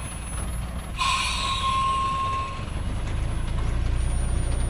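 Loaded Thaco Forland truck's diesel engine running low and steady as it creeps down a steep dirt slope. About a second in, a high squeal with a hiss from its brakes starts suddenly and lasts under two seconds.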